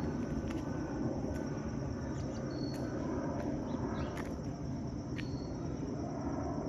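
Outdoor ambience: a steady high insect chirring over a low background hum, with a short high note repeating about every two and a half seconds and a few faint clicks.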